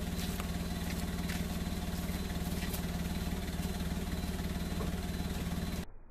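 Toyota Agya / Daihatsu Ayla exhaust idling, heard close at the tailpipe: a steady, even stream of low exhaust pulses. It cuts off abruptly near the end.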